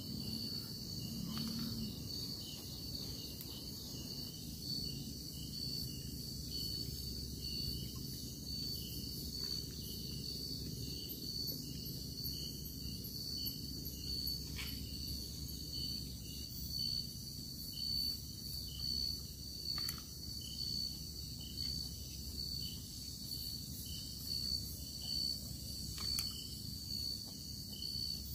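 Night insect chorus of crickets: a steady high trill with a second, pulsing trill just beneath it, and now and then a sharp click.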